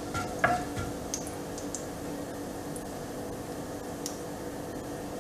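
Cumin seeds frying in hot oil and ghee, giving scattered faint crackles and ticks. A wooden spatula knocks against the pan twice in the first half-second.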